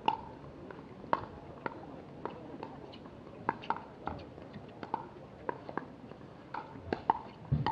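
Pickleball paddles striking a plastic ball in a fast rally: a run of sharp, ringing pops, one to three a second, some in quick pairs. A dull thump comes near the end.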